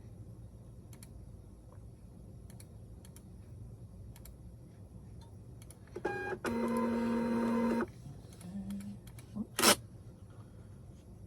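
A shipping-label printer running for under two seconds with a steady mechanical whine as it feeds out a label, followed a couple of seconds later by one sharp click.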